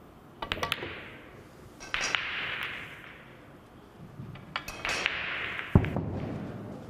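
A pool shot: sharp clacks of the cue tip and pool balls striking about half a second in. More clicks come around two and five seconds in, each followed by a stretch of hiss, and a heavy thud just before six seconds is the loudest sound.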